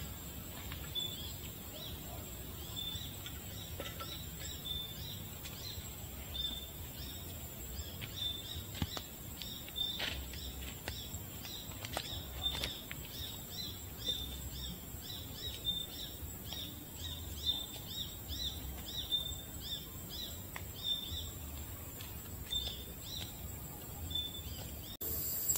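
Forest ambience: a short high chirp repeats about twice a second over a steady high-pitched insect drone, with a few faint clicks. Near the end the sound changes abruptly to a louder hiss.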